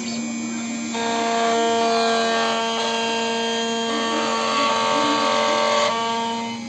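Automatic key-cutting machine's cutter motor whining steadily as it mills a car key blade, with a grinding hiss. It starts about a second in and stops near the end, over a constant mains hum.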